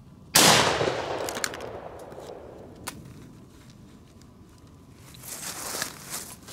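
A single loud 12-gauge shotgun shot about a third of a second in, echoing as it dies away over a second or two. Rustling near the end.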